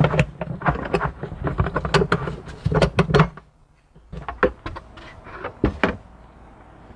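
Clicking and knocking as the spare-wheel hold-down is unscrewed by hand and the spare wheel is handled in the trunk's spare-tire well. The clicks are densest at first, stop briefly about three and a half seconds in, then come back as scattered knocks.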